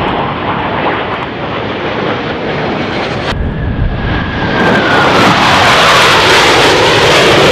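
Airplane engine noise. About three seconds in it gives way to a low pass of an aircraft: a loud rushing roar with a tone sliding steadily down in pitch as it goes by, loudest near the end.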